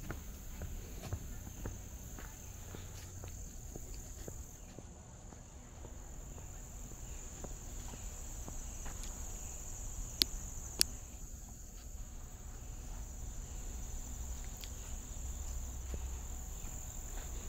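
Steady high-pitched drone of an insect chorus in summer woodland, with soft footsteps on a dirt trail. Two sharp clicks about half a second apart come near the middle.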